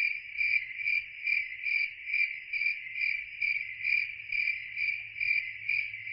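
Insect chirping: a steady high trill that pulses evenly about two and a half times a second.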